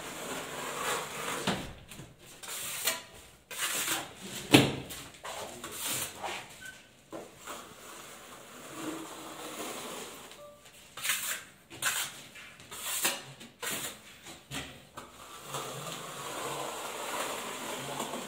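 Plastering trowel scraping a thin skim coat of cement adhesive over a reinforced ceiling in irregular strokes, with a sharp knock about four and a half seconds in.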